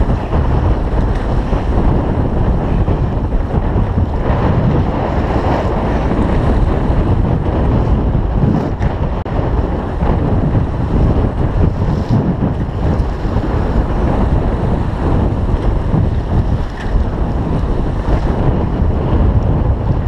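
Steady wind buffeting the microphone over water rushing and splashing along the hull of a 28 ft Pearson Triton sloop under sail.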